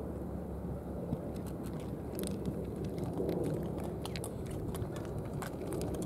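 Cats chewing food from plastic trays: irregular small clicks and crunches that start about a second and a half in, over a steady low background rumble.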